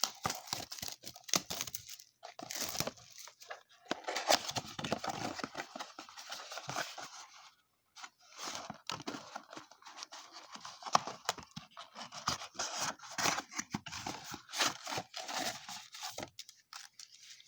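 Plastic shrink-wrap and cardboard being torn and crinkled as a trading-card blaster box is ripped open, in irregular crackling bursts with a short pause about eight seconds in.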